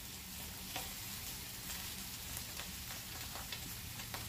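Raw chicken pieces and vegetables frying in a hot pan: a steady sizzle with scattered small crackles as the chicken is laid in to brown.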